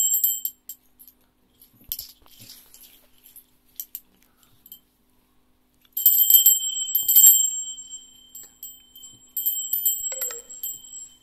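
A Kuma ni Kanabo bear bell shaken by hand, ringing in bursts with a high, lingering ring. There are two strong rounds of ringing, the first starting about six seconds in and the second about three seconds later, with only faint clinks between them.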